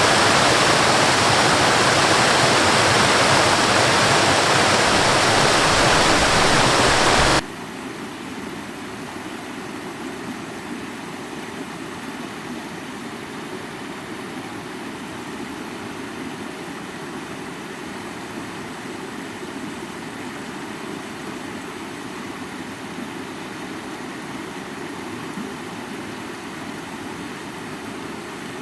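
High waterfall rushing loudly and steadily, cutting off abruptly about seven seconds in to a much quieter, deeper steady rushing rumble.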